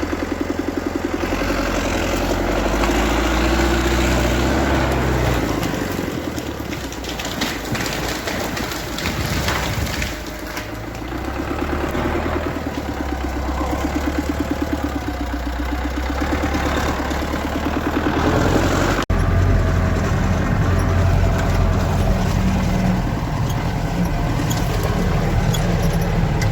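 Vehicle engine running hard, its pitch wavering up and down, with an abrupt cut about two-thirds of the way through after which it carries on.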